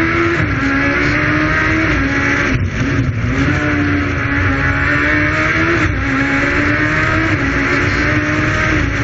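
Suzuki Hayabusa motorcycle engine in a small hillclimb prototype car, heard onboard under hard acceleration. The engine pitch climbs and drops at each gear change: a brief lift about two and a half seconds in and another shift near six seconds.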